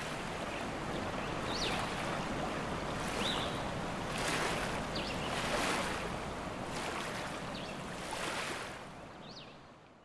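Rushing waterfall water: a steady wash of noise that swells and ebbs, with short high chirps every second or two. It fades out near the end.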